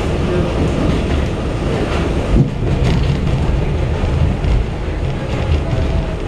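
R68 subway car running on elevated track, heard from inside the car: a steady rumble of wheels and motors. About two and a half seconds in there is a thump, as a train on the next track comes alongside and rushes past.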